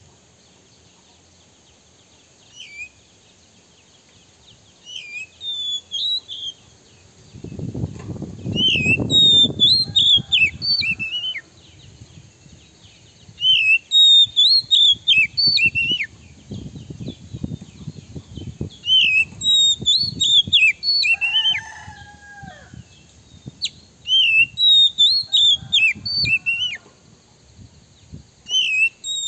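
Male Oriental magpie-robin singing in repeated bursts of sharp, rapid, sliding whistled phrases a few seconds apart, the loud, excited song kept as a lure to provoke rival magpie-robins. A low rustling noise sits under some of the phrases.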